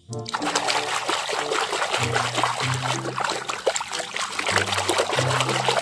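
A hand swishing and churning water in a plastic tub while scrubbing a small plastic toy, a continuous busy splashing and sloshing that starts just after the beginning.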